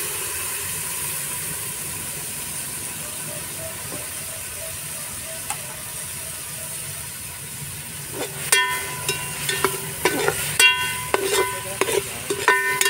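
Chopped tomatoes, onions and chillies sizzling as they fry in a metal pot. From about eight seconds in, a steel ladle stirs and knocks against the pot a dozen or so times, each knock ringing.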